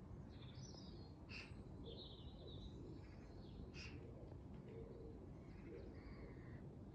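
Faint birdsong: scattered short chirps and calls from small birds over a low, steady background rumble.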